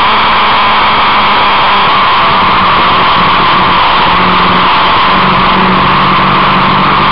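Vehicle running at speed on a race track, a constant loud roar of wind and engine noise with a faint engine tone underneath that drops in pitch a little past halfway.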